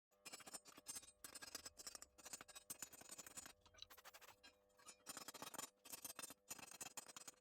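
Crackling sputter of an electric welding arc from a 100 V home welding machine, coming in bursts of a second or two with short breaks between them.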